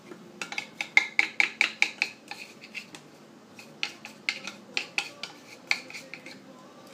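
Quick runs of light clinks of kitchen utensils against dishes, each clink ringing briefly, in two bursts: one starting about half a second in and another starting near the four-second mark.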